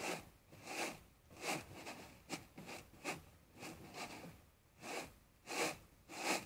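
Rice grains swishing as they slide and land on a woven bamboo winnowing tray tossed by hand. About one and a half rhythmic swishes a second.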